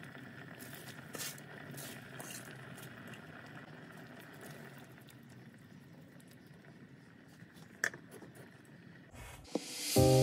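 Pot of corn soup simmering on the stove: a soft, steady bubbling with a few light clicks. Background music comes in at the very end.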